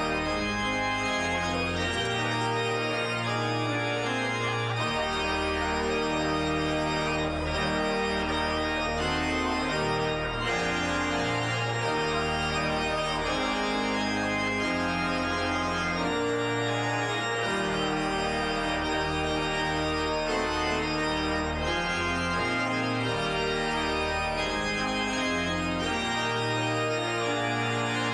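Church organ playing the postlude: slow held chords over a bass line that moves every second or two.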